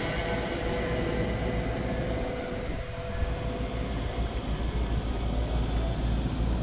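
Class 350 Desiro electric multiple-unit train pulling away from the platform, its motor whine fading over the first few seconds, over a steady low rumble.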